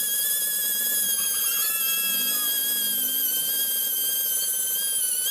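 A small high-speed rotary power tool runs with a steady, high-pitched whine, its pitch wavering slightly.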